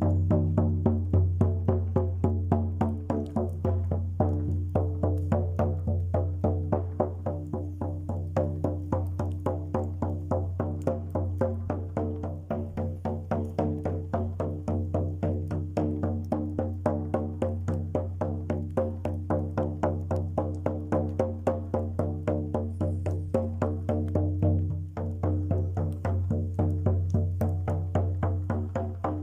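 Music: a steady low drone with overtones, over a fast even beat of about three strokes a second.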